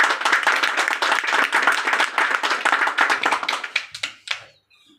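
People clapping, a quick dense patter of hand claps that dies away about four seconds in, with a last clap or two just after.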